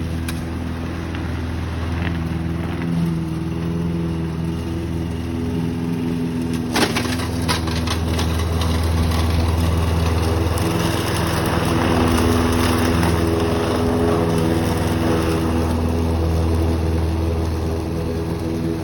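Lawn mower running steadily while cutting grass, its hum swelling and easing as it goes. A sharp crack about seven seconds in, followed by a few lighter clicks.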